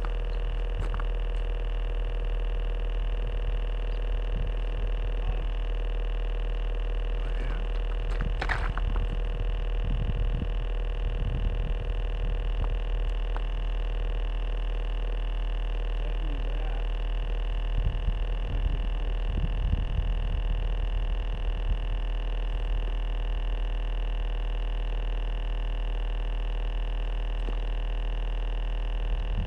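A steady low hum with several steady faint tones above it. Irregular low thumps and rumbles come about a third of the way in and again a little past the middle, with one short sharp sound just before the first of them.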